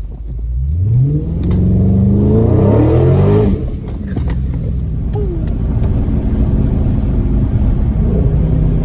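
2020 Dodge Charger Scat Pack's 392 (6.4-litre) HEMI V8 under hard acceleration: the revs climb steeply for about three seconds, drop off sharply about three and a half seconds in, and the engine then runs on at a steady, lower pitch.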